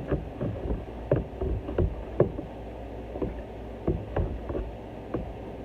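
Irregular clinks and knocks of kitchen utensils and dishes being handled, several a second, over a steady low hum.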